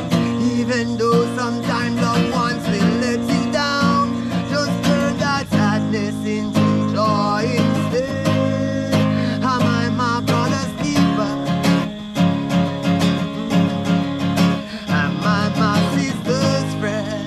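Music with guitar: a song's instrumental stretch with a wavering melody over steady accompaniment.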